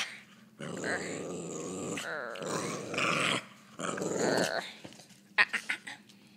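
Small dog growling in play in three long bouts, followed near the end by a few short, sharp sounds.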